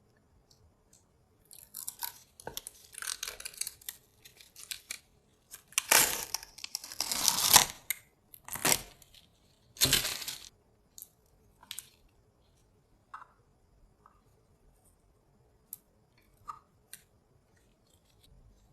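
Packaging being torn and handled, with bursts of tearing and crinkling, the loudest just past the middle, then a few scattered light clicks.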